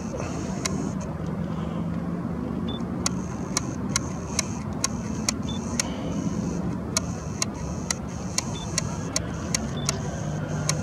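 Steady low rumble of distant road traffic, with sharp ticks coming about twice a second at uneven spacing.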